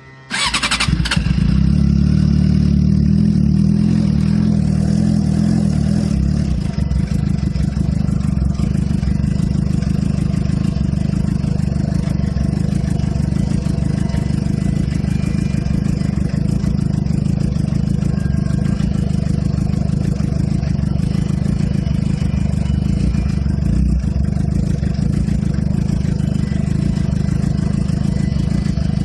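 Suzuki GSX-R inline-four motorcycle engine cranking on the starter and catching almost at once, then running steadily; about six and a half seconds in its note changes and it settles slightly lower. This is a cold start on a bike that the owner says won't hold a normal idle in the cold, runs with a rich-smelling exhaust and sounds odd.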